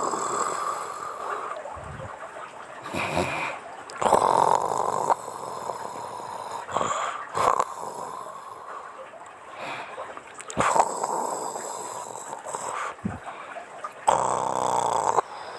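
A woman snoring in her sleep: loud, breathy snores recurring every few seconds, with a few short low snorts between them.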